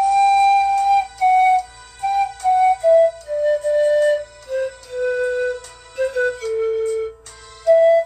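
Pan flute playing a slow melody of held, breathy notes that step downward phrase by phrase, then leap back up near the end.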